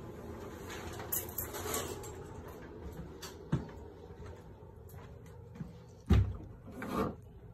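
A wooden interior door being pushed open amid phone-handling rustle and footsteps, with a sharp click about halfway through and a loud low thump about six seconds in, followed by a short swish.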